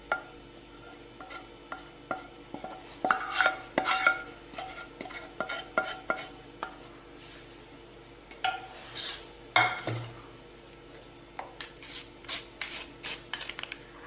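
Steel utensils clinking and scraping irregularly as hot palm jaggery syrup is worked through a strainer, some strikes ringing briefly. The loudest clatter is about three seconds in and again near ten seconds.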